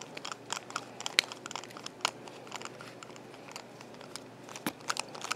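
Precision screwdriver working a tiny screw out of a DJI Mavic 2 drone's plastic landing-gear arm: scattered light clicks and scrapes of the driver tip in the screw head, with fingers handling the plastic arm.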